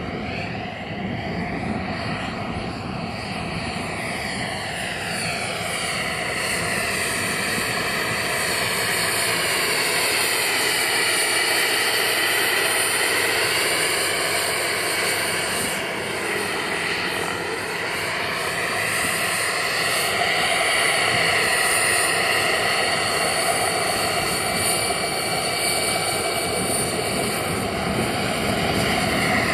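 Jet-turbine-powered RC helicopter in flight, its small gas turbine giving a continuous whine. The pitch slides down and back up several times as it passes, and it grows louder about a third of the way in.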